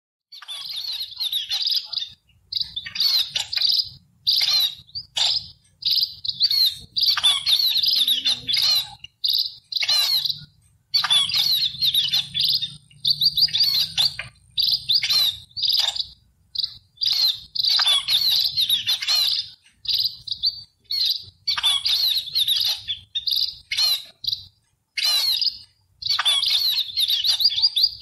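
Sparrows chirping in rapid bursts of overlapping chirps, each burst lasting about a second, with short pauses between them.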